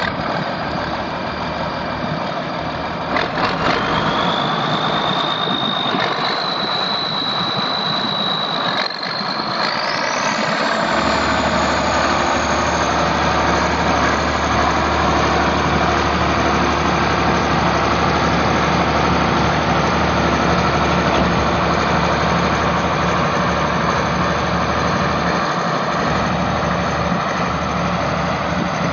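Case 504 six-cylinder diesel engine of a 1981 Case 4490 tractor running. A high whine climbs in pitch about 3 seconds in and again about 10 seconds in, then holds steady while the engine note below it grows fuller.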